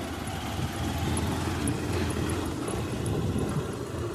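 Motorbike engine running at low speed while riding over a rough sandy track, a steady low rumble.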